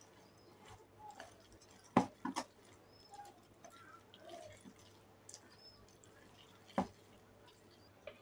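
Metal spoon and wire whisk stirring thick wheat-flour dosa batter in a glass bowl, with faint stirring sounds and sharp clicks of the utensil knocking the glass: three about two seconds in and one near seven seconds.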